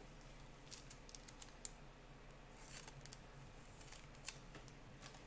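Faint, scattered clicks and soft rustles of football trading cards being handled and flipped through, with a couple of slightly sharper ticks.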